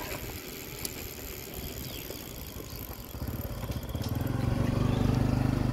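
A motor vehicle's engine running and approaching, growing louder from about three seconds in.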